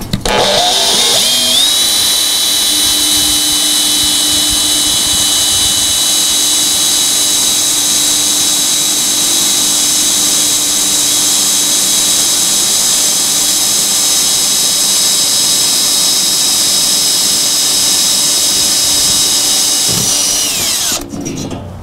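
Makita cordless drill boring a hole through an aluminum catalytic-converter shield plate, its motor whine spinning up in the first second or two, holding steady under load, then winding down and stopping about 20 seconds in.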